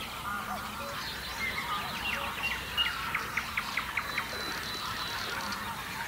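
Mixed chorus of wetland birds calling over a flooded river marsh, many voices overlapping, with honking calls among them. From about two seconds in, a quick run of short calls repeats roughly three to four times a second.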